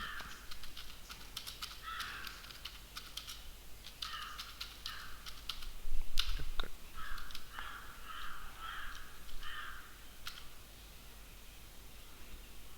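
Computer keyboard typing in irregular runs of clicks, with one louder knock about six seconds in. A crow caws repeatedly in the background, in short series of calls.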